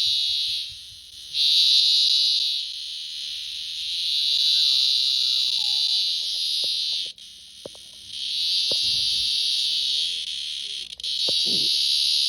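A cicada held on its back giving its loud, shrill distress buzz, made by its tymbals and not its mouth. The buzz comes in long stretches of several seconds, breaking off briefly near the start, stopping abruptly about seven seconds in and starting again about a second later.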